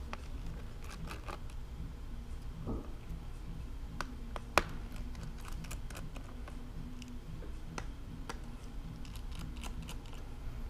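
Small scattered clicks and ticks of a precision screwdriver turning out the screws that hold a 2015 MacBook Pro's logic board down, with one sharper click about four and a half seconds in. A steady low hum runs underneath.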